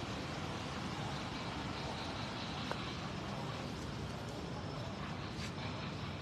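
Steady background noise: a low rumble with an even hiss over it, and one faint click near the middle.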